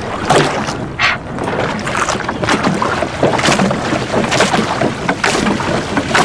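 Water slapping against the hull of a rowing eight moored beside a pontoon, in short splashes roughly once a second.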